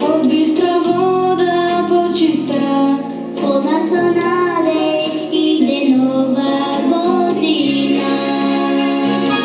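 A group of children singing a New Year's song together over instrumental backing music.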